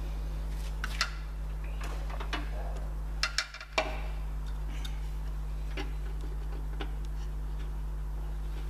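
Scattered light clicks and taps of parts and fittings being handled during assembly, with a cluster of sharper clicks about three and a half seconds in, over a steady low hum.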